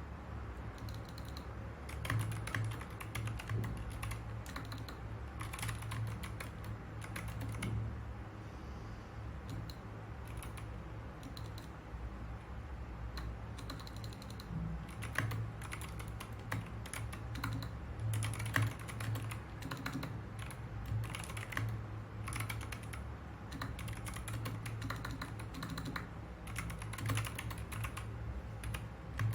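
Typing on a mechanical keyboard: irregular runs of key clicks, with a steady low hum underneath.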